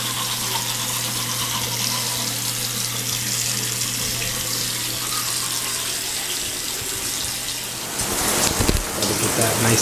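Bathroom sink tap running steadily over a low steady hum. About eight seconds in, the sound turns louder and rougher, with a few knocks.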